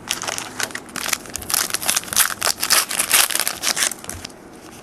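A trading-card pack wrapper crinkling and crackling as it is handled and torn open. The crackle is densest and loudest in the middle and dies away about four seconds in.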